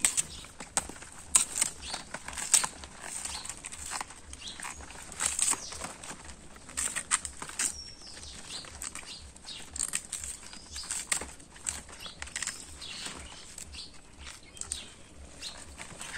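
Water hyacinth being cut and handled by hand: a run of irregular sharp snaps and rustles from its fleshy stems and leaves.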